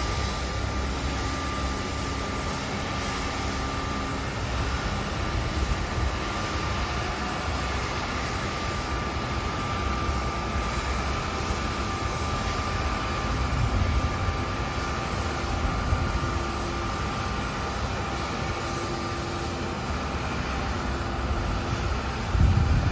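Embraer 170 regional jet running on the apron during pushback: a steady turbine whine over a low rumble, with a brief louder rumble near the end.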